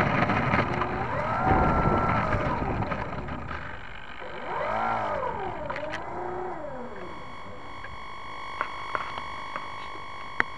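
Electric motor and propeller of an RC Hype Cessna 400 Corvallis model changing speed, its pitch rising and falling twice as the throttle is worked, heard through a keychain camera on the tail. Then the motor stops and a steady high electronic whine remains, with a few sharp clicks near the end.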